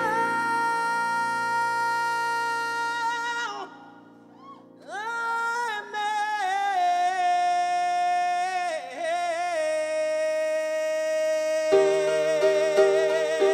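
Male voice singing long, wordless held notes with vibrato and sliding pitch over a Yamaha grand piano. The voice drops out for about a second a few seconds in, and the piano chords grow fuller near the end, as the song winds up.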